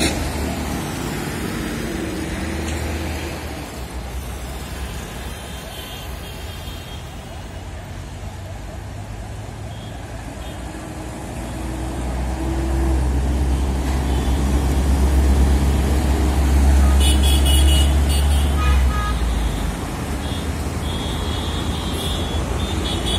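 City street traffic: bus, car and motorcycle engines and tyres on the road. A heavy vehicle's deep rumble swells about halfway through and drops off shortly before the end, with a few short high tones near the end.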